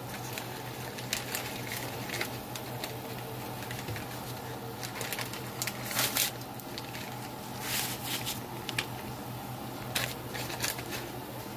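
Packets of onion soup mix being shaken and emptied, the packets rustling and crinkling in short sharp bursts, loudest about six and eight seconds in, as the dry mix patters onto the gravy. A steady low hum runs underneath.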